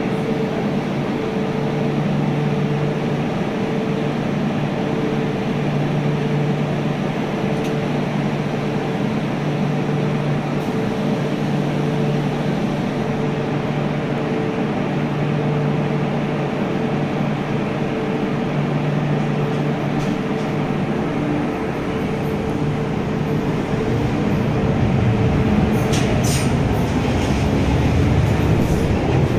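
A steady two-tone mechanical hum, then in the last several seconds an MTR Q-Train electric multiple unit approaching the platform, its rumble building and growing louder, with a few sharp clicks from the wheels on the rails.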